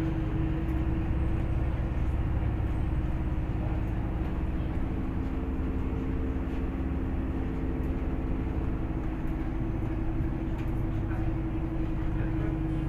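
Interior of a MAZ-203 city bus under way: a steady low drivetrain rumble with a constant whine. A second, higher whine comes in for a few seconds midway, and a few faint rattles sound in the cabin.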